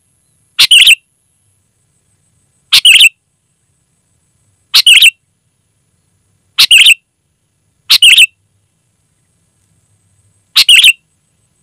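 Sooty-headed bulbul calling: six short, loud calls, each a quick cluster of a few notes, repeated about every two seconds.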